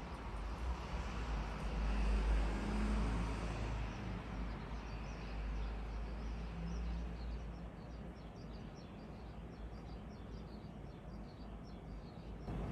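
A low rumble that fades over the first few seconds, then small birds chirping in quick, repeated high chirps.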